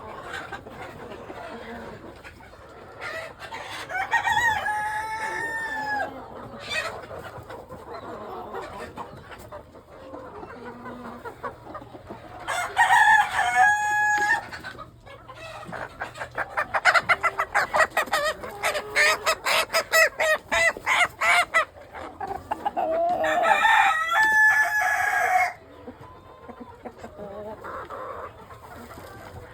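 Three rooster crows, one early, one mid-way and one near the end, with a run of rapid clucking between the last two, over the steady background noise of a flock of chickens.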